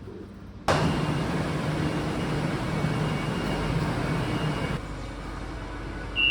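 Road traffic with a vehicle engine running close by, coming in abruptly about a second in and dropping back a little near the end.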